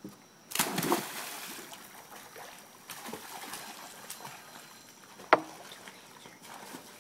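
A child's head-first dive into a swimming pool: a splash on entry about half a second in that trails off into sloshing water, then lighter splashing as she swims. A single sharp click about five seconds in.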